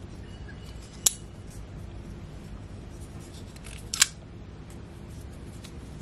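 Folding pocket knife handled in the hand: two sharp metallic clicks of the blade snapping open and locking, about three seconds apart.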